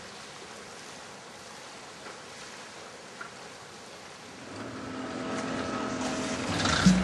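Faint steady hiss, then from about four and a half seconds in a boat motor's hum that grows steadily louder.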